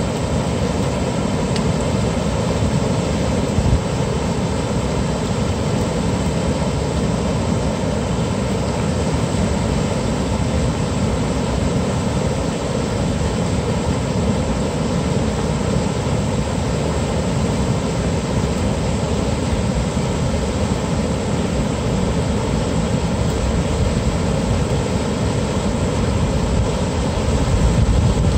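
River water rushing steadily over a low weir in white-water rapids, a loud, even noise that grows slightly louder near the end.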